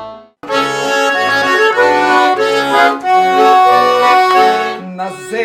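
Garmon (Russian button accordion) playing a folk-song introduction: a melody over steadily pulsing bass-and-chord accompaniment, starting again after a brief break just after the start.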